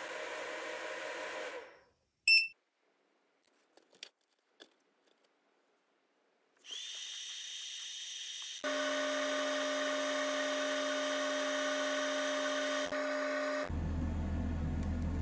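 LaserPecker 4 laser engraver and its rotary extension at work: a steady fan hiss cuts out about two seconds in, a short electronic beep and a few faint clicks follow, then from about six seconds a fan spins up with a rising whine and settles into a louder steady machine hum while it engraves.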